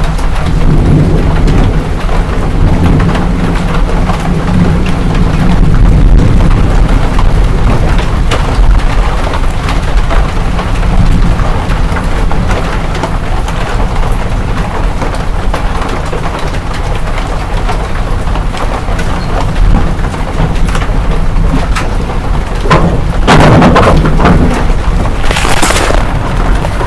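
Hail and rain pelting down in a storm, with many small sharp impacts over a steady rush and a low rumble throughout. A louder rush comes near the end.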